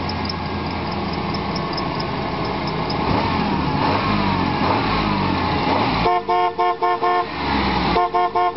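A loud, even noisy rush, then from about six seconds in a car horn honking in a rapid run of short toots, breaking off briefly and starting again near the end.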